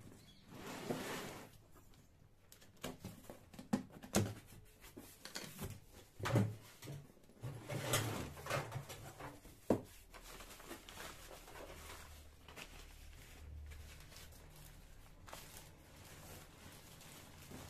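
Cardboard shipping box being opened and unpacked by hand: flaps and tape pulled, packing paper and plastic grocery packets rustled and crumpled, with scattered knocks and scrapes. The handling is busiest in the first half and quieter later.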